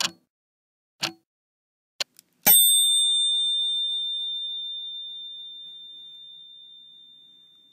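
Short sharp clicks about once a second, then, about two and a half seconds in, a single bright bell ding that rings on as one high, clear tone, slowly fading over about five seconds.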